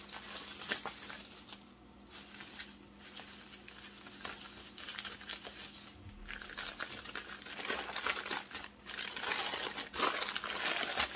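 Paper packing material crinkling and rustling as a wrapped glass piece is unwrapped by hand. The crinkling gets busier and louder in the second half.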